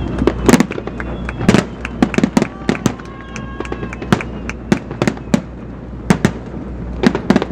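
Fireworks display going off: a quick, irregular run of sharp bangs and crackles, some near and loud, others fainter.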